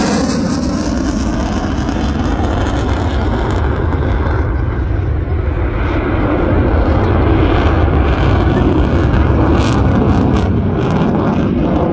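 Eurofighter Typhoon's twin EJ200 jet engines on afterburner, a loud, steady rumble as the jet flies away. The higher hiss thins out after the first couple of seconds while the deep rumble carries on.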